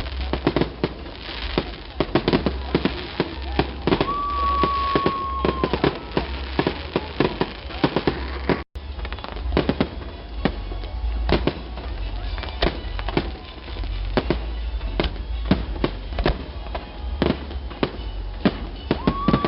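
Fireworks display: a rapid, irregular run of firework bangs and crackles over a low rumble. A steady high whistle is held for about a second and a half around four seconds in, and the sound cuts out for an instant just before the middle.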